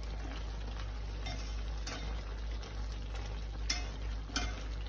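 A utensil stirring braised chicken in an enamelled pot, with about four light clicks against the pot and the food cooking underneath. A low steady hum runs beneath.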